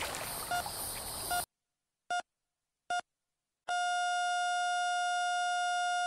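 Heart-monitor beep sound effect over splashing water, beeping steadily, then cutting off abruptly. After a moment of silence come two single beeps and then one long unbroken flatline tone of nearly three seconds, the signal of the heart stopping.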